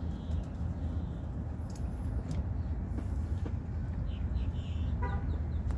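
Cat chewing its food from a bowl, with a few faint crunching clicks, over a steady low rumble that is the loudest sound throughout. A brief squeak comes near the end.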